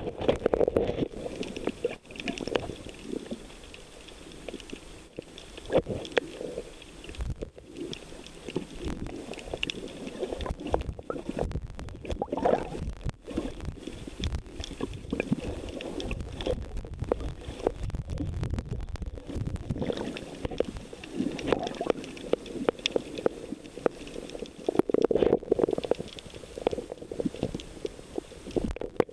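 Muffled, irregular underwater rumbling and gurgling of water moving around a submerged camera, with scattered short clicks and knocks.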